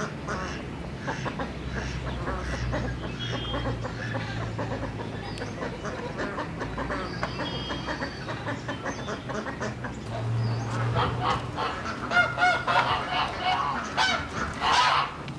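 Domestic fowl calling loudly in a quick run of calls during the last few seconds. Before that, soft snapping and rustling of leafy greens being cut by hand with a knife.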